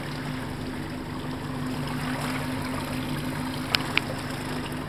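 Boat engine running steadily, a low even hum, with two sharp clicks in quick succession near the end.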